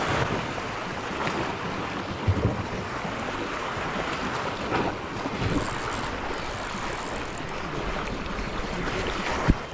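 Wind buffeting the microphone over the wash of sea water, with a few short knocks, the sharpest near the end.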